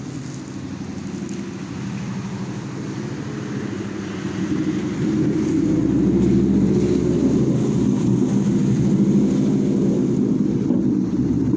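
Low engine rumble from a passing vehicle, growing louder about five seconds in and staying strong until it starts easing near the end.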